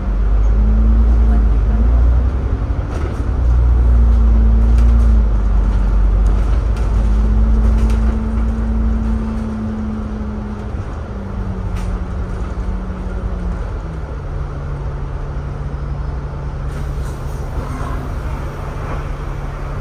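Diesel bus engine and drivetrain heard from inside the bus as it pulls away and drives on: a deep rumble with a humming whine that steps up and down in pitch. The rumble is loud for the first half, then eases to a quieter, steadier, lower hum.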